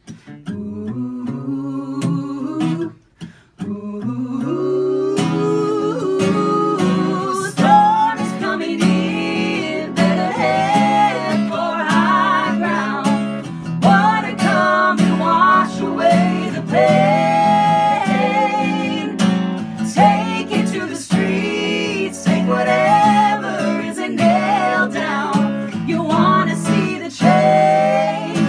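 Acoustic guitar strummed in steady chords under vocal harmony from a woman and two men singing together. The guitar plays briefly alone, drops out for a moment about three seconds in, and the voices come in soon after.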